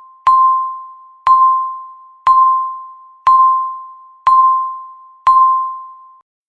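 Countdown timer's per-second chime: a single bell-like tone struck once a second, each strike ringing and fading away, six times, marking the final seconds before the alarm.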